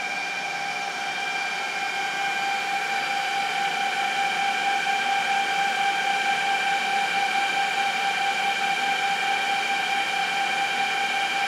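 Cooling fans of rack-mounted servers running steadily: a constant whine with several fixed tones over an airy hiss, growing a little louder over the first few seconds.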